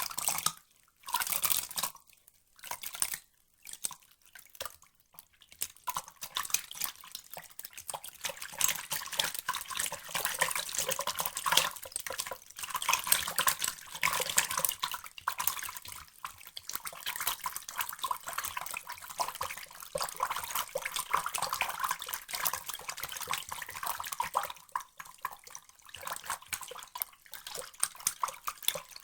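Water sound effect: a few separate splashes in the first five seconds, then a steady dense trickle of running water, bright and thin, with little low end.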